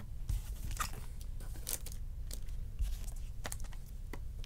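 Trading cards being handled and sorted by hand on a table: scattered light clicks, taps and rustles, over a low steady hum.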